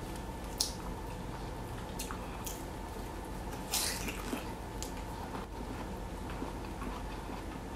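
Eating a piece of boiled bamboo shoot: a few soft mouth clicks and a short bite-and-chew noise a little under four seconds in, over a steady low room hum.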